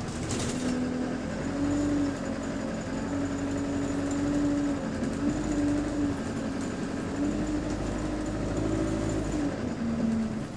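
Single-deck bus engine and driveline heard from inside the saloon while on the move, a steady hum whose pitch steps up and down several times as the bus changes speed, over a low road rumble. The uploader rates the engine as good.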